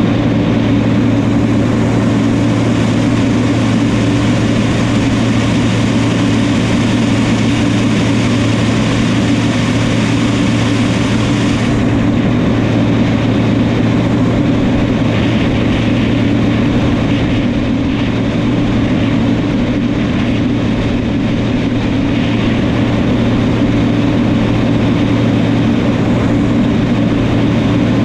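New Holland crawler tractor's diesel engine running steadily and loud, with an even low drone. The hiss above it drops away suddenly about twelve seconds in while the drone goes on unchanged.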